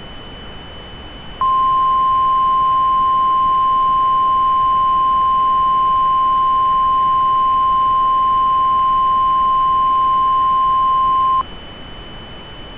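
Emergency alert tone: a single steady beep just above 1 kHz, the 1050 Hz weather-radio warning alarm tone of an Emergency Alert System broadcast, starting about a second and a half in and held for about ten seconds before cutting off. Underneath runs a steady hiss with a faint high whine.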